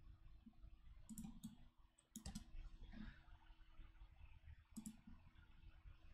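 Near silence broken by a few faint computer mouse clicks, some in quick pairs, over a low steady hum.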